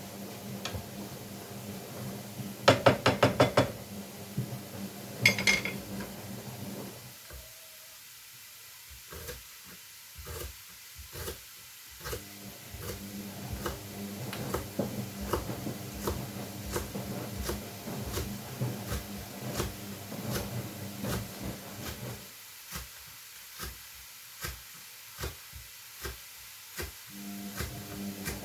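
Kitchen clatter over a running washing machine: a quick rattle of dishes or a pot about three seconds in and a ringing metal clink a couple of seconds later. A steady machine hum then drops out twice for about five seconds at a time, with light regular clicks throughout.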